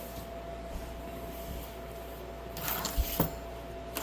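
Small electrical parts and wiring being handled: brief rustling with a couple of sharp clicks about three seconds in, over a faint steady hum.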